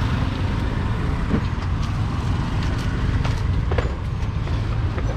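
Steady low rumble of street traffic, with a few faint clicks.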